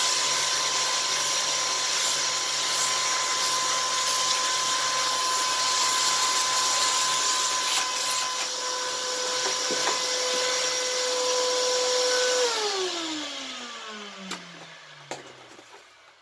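A canister vacuum cleaner runs steadily, a high motor whine over rushing air, as its nozzle sucks roasting dust off a metal plate. About twelve seconds in it is switched off, and the whine falls in pitch as the motor winds down. A couple of light knocks come near the end.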